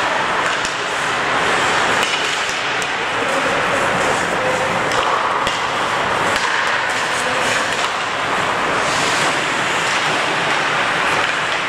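Ice hockey play on an indoor rink: skate blades scraping and carving on the ice, with scattered sharp clacks of sticks and puck, over a steady hiss.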